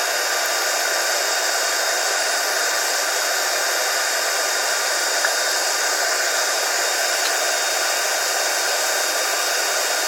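Large aluminium-melting foundry furnace running at full heat, its burner giving a steady, even rushing noise with a faint whine in it.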